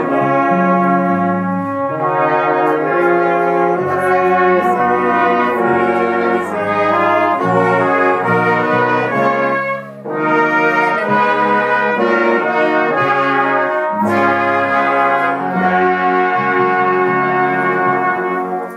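Live band music with a trumpet. After a short break about ten seconds in, a brass band of trombone, cornets and tuba plays together.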